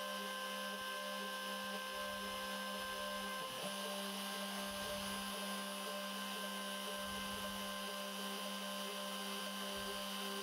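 Spindle of a homemade CNC router running at a steady speed while a 3 mm end mill cuts a 1 mm-deep slot in wood at a slow feed: a steady whine over a low hum.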